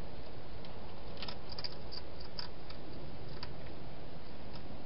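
Hedgehog chewing dry food from a dish: a run of small sharp crunching clicks, starting about a second in and ending past three seconds, over steady hiss.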